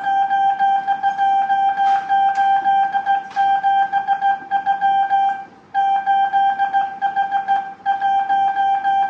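Morse code tone, a single beep of about 800 Hz keyed on and off into dots and dashes by a hand telegraph key, sending numeric cipher groups. There are short breaks between groups about five and a half and about eight seconds in.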